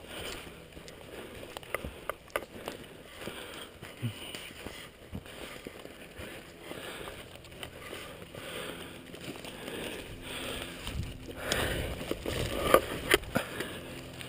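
Footsteps crunching and shuffling through dry fallen leaves, with the rustle of clothing and gear. The rustling grows louder near the end, with two sharp knocks about a second apart.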